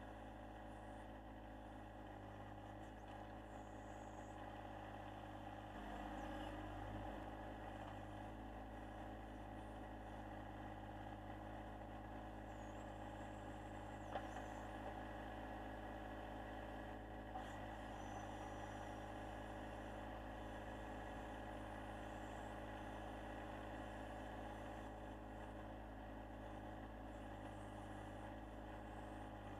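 John Deere 1025R compact tractor's three-cylinder diesel engine running steadily while it powers the backhoe digging in hard, dry ground. There are a couple of brief knocks about midway through.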